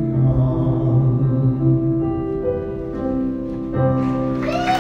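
Piano playing the closing chords of a live ballad, each chord held and left to ring. Near the end the audience breaks into applause with cheers and whistles.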